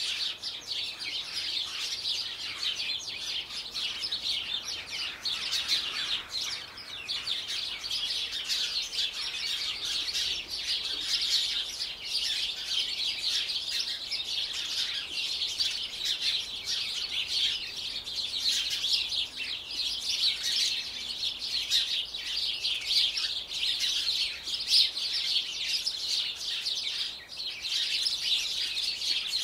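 Birds chirping and twittering continuously, a dense run of rapid high chirps with no pauses.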